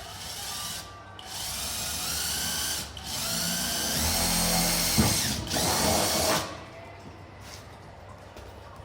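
Power drill running in four bursts over about six seconds, each start and stop clear, the longest burst in the middle.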